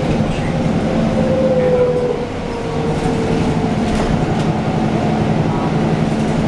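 Interior of a moving MAN NG363F articulated city bus: steady engine and drivetrain hum under road rumble, with a whine that falls slightly in pitch around two seconds in, where the level dips briefly.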